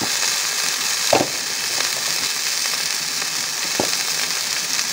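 Sliced onions and turmeric frying in mustard oil and a little water in a steel pan: a steady sizzle with two sharp pops, one about a second in and one near the end.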